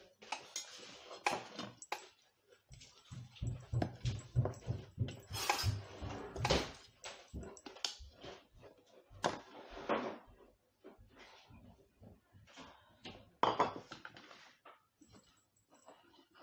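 Wire whisk beating flour in a stainless steel bowl, quick repeated strokes clinking and scraping against the metal, among other clatters of kitchen handling.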